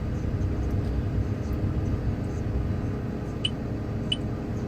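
Farm potato-handling machinery running steadily with a low rumble, as it runs on empty at the end of the harvest. From about three seconds in, short high chirps repeat every half second or so.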